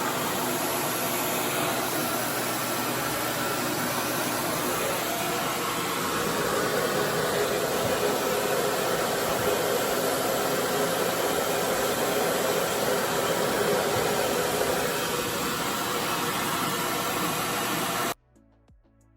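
RevAir reverse-air hair dryer running: a steady, loud rush of motor and suction noise that stops abruptly near the end.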